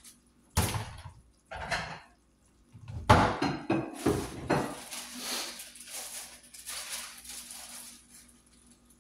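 Kitchen clatter from things being handled: a knock about half a second in and another about a second later, then the loudest run of knocks and clattering from about three seconds in, thinning out before the end.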